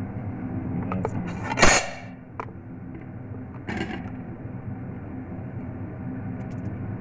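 Kitchen handling noises: a short, louder clatter about a second and a half in, then a click and another brief clatter, over a steady low hum.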